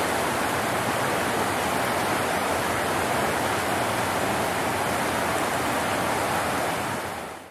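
Fast river water rushing over rocky rapids, a steady even rush that fades out near the end.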